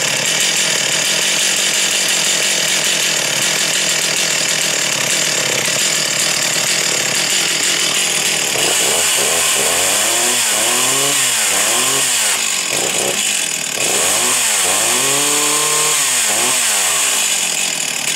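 Stihl 028 AV Wood Boss two-stroke chainsaw running loudly on the bench. About halfway through it is revved up and down several times, the engine pitch rising and falling in quick blips, with a longer rev near the end.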